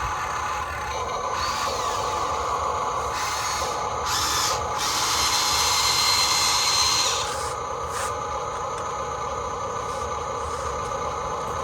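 Electric motors and gearing of a remote-control model excavator whining steadily like a small power tool. The sound grows louder and harsher for about three seconds midway, then settles back.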